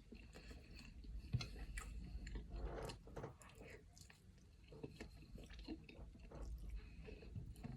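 A person chewing food close to the microphone, with soft irregular mouth clicks and smacks and a sharper click about a second and a half in.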